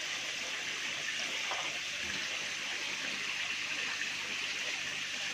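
Steady rush of water pouring from a recirculation inlet pipe and splashing into a fish tank.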